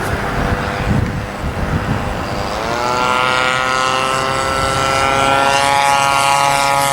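The 50cc two-stroke gas engine of a Revolver RC aerobatic plane. After a rough, noisy first couple of seconds, it comes up in pitch about two and a half seconds in, then holds a steady high-throttle drone.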